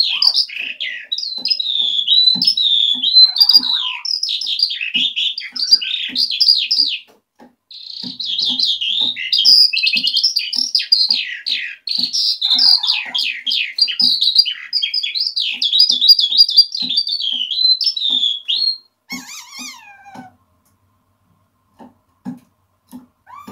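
Eurasian skylark singing a long, fast, unbroken warbling song. It pauses briefly about seven seconds in and stops a few seconds before the end, after a couple of short calls.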